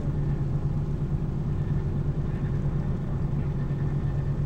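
Motorboat engine running steadily at low revs, an even low hum.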